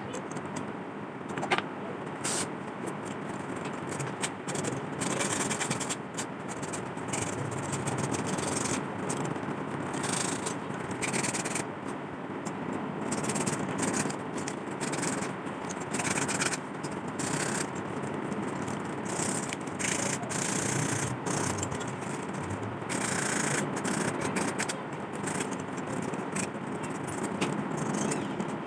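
Rubbing and scraping on rusty metal lantern parts, in short irregular strokes, as when sanding off rust by hand.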